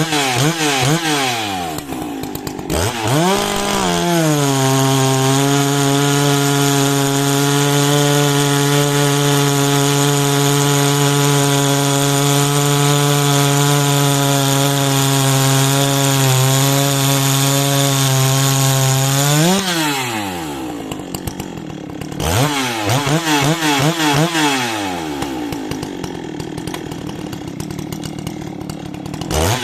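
Large 90cc two-stroke chainsaw revving in quick blips, then held at a steady high pitch for about fifteen seconds while cutting through a log. It then drops back and is blipped again near the end.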